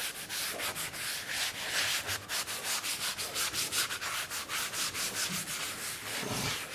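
A damp sponge scrubbed briskly back and forth over sapele mahogany veneer on a glued panel, a quick even rhythm of several rubbing strokes a second. The veneer's face side is being lightly moistened.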